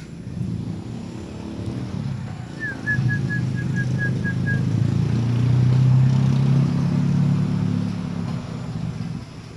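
A motor vehicle's engine passing, a low rumble that swells to its loudest about six seconds in and then fades. A little before that, a quick run of about eight high chirps, about four a second, lasts some two seconds.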